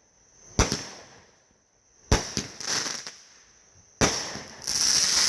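Consumer fireworks going off: three sharp bangs about a second and a half apart, each echoing away, with a few smaller pops after the second. A loud steady hiss sets in near the end.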